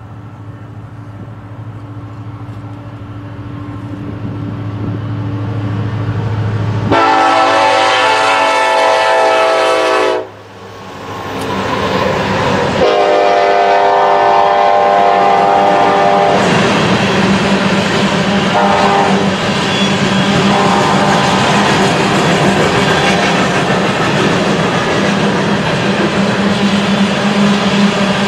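BNSF empty coal train with SD70ACe and ES44AC diesel-electric locomotives passing. The engines hum louder as they approach, the horn sounds two long blasts about seven and thirteen seconds in, and then the empty coal hopper cars roll by with steady wheel-on-rail noise.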